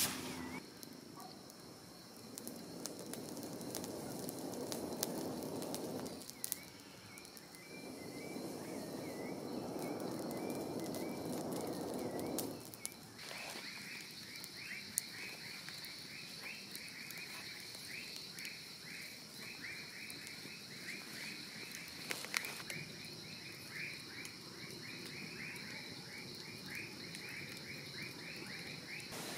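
Night chorus of frogs and insects: a rapidly pulsed call repeats over a steady high insect drone, strongest in the second half. A wood campfire crackles with an occasional sharp pop.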